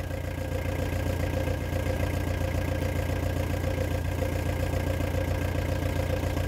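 Camping-car's engine idling steadily, a constant low hum.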